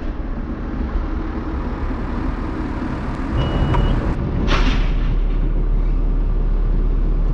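John Deere farm tractor's diesel engine running steadily, growing louder about three seconds in. A short electronic beep sounds soon after, then a brief hiss.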